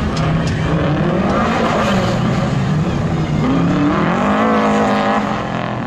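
Car engine revving hard on an autocross run, its pitch rising and falling with the throttle; it climbs about three and a half seconds in, dips, then rises again and holds before easing off near the end.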